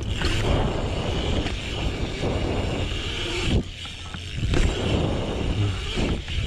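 BMX bike tyres rolling and carving on a concrete bowl, with wind rumbling on the body-mounted camera's microphone. A few sharp knocks from the bike come in the second half.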